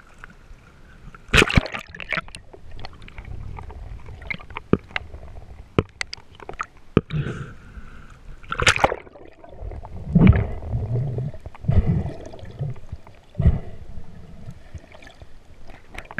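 Sea water sloshing and splashing around a camera at the waterline as a diver swims through choppy water, with many short sharp clicks and a few louder splashes.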